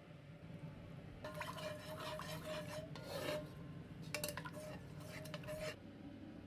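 A metal spoon scraping and stirring in a cooking pot. It makes a run of rough scraping strokes and clicks from about a second in until near the end.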